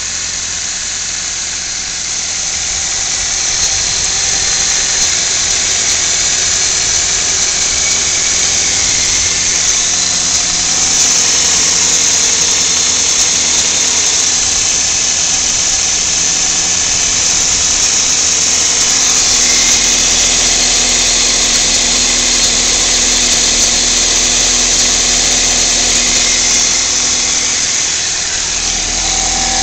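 2000 Toyota Celica GT's 1.8-litre four-cylinder engine running steadily, with a strong high hiss over the engine note. The owner hears puffs of air from the engine and, with oil loss, suspects a bad valve gasket set or head gasket.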